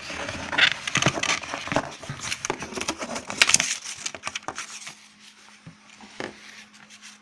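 Paper and cardboard packaging being handled: dense crinkling and rustling with sharp clicks for about four seconds, then only a few scattered taps and rustles.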